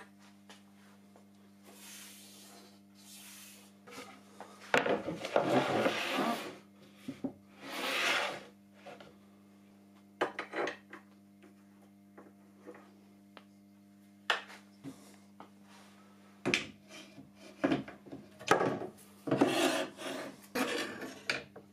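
Aluminium rip fence and stop block of a homemade table saw being handled: several bursts of metal sliding and scraping on the aluminium rails, with knocks and clicks, most of them in a cluster near the end. A faint steady low hum runs underneath.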